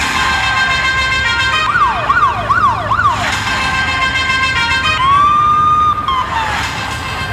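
Siren sound effect in a dance-mix soundtrack: steady electronic tones, with four quick rising-and-falling wails just under two seconds in, then one held wail tone lasting about a second around five seconds in.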